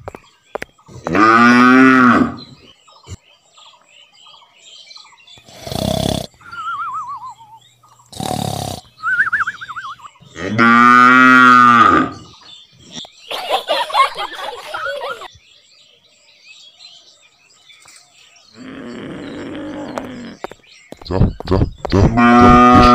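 Cow mooing: three long, loud moos, about a second in, near the middle and near the end. Between them come short sharp hits and brief wavering tones.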